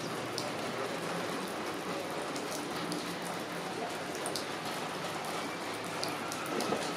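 Steady rain falling, an even hiss with scattered sharp ticks of drops landing close by.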